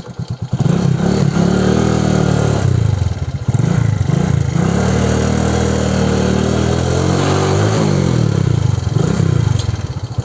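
Motorcycle engine running under way, its pitch climbing and falling back several times as the bike accelerates and eases off.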